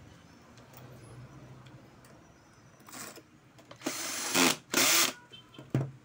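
Cordless drill-driver running in short bursts as it drives screws into the fan motor's rear bearing housing. The two loudest bursts come about four and five seconds in.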